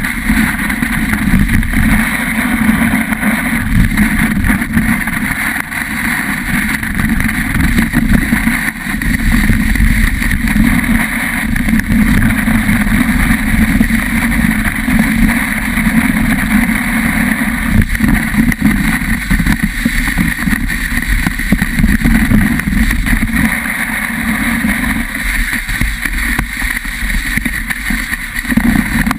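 Steady, loud rush of wind and snow sliding under a ski or snowboard run down a groomed slope, picked up by a camera riding low over the snow, with a muffled sound that barely changes.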